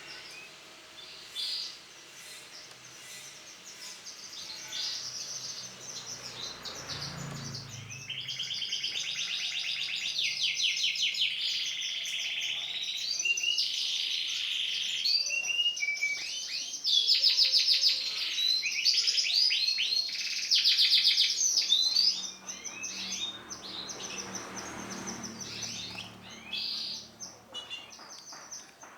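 Female canary chirping and calling, breaking into long runs of rapid, high trilled notes. The bird is loudest about two-thirds of the way through, then goes back to scattered chirps near the end.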